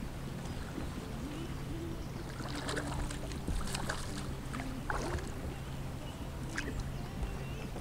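A boat's motor humming steadily and low under open water, with a cluster of short splashing sounds around the middle as water slaps the hull.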